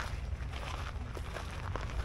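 Footsteps of a person walking on a dirt-and-gravel lot, over a low steady rumble.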